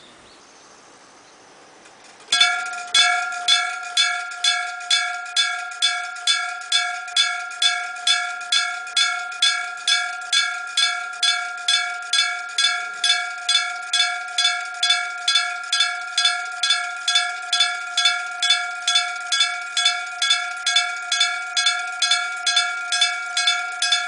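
Electric bell (denshō-shiki) of an old-type Japanese railroad crossing signal starting up about two seconds in, then striking steadily at about two strikes a second. Each strike is a bright metallic clang that rings on into the next. This is the warning for an approaching train.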